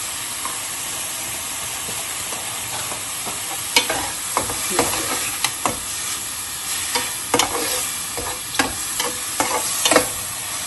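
Sliced mushrooms sizzling in oil in a metal pan, with a steady frying hiss. From about four seconds in, a spatula scrapes and knocks against the pan in repeated strokes as the mushrooms are stirred.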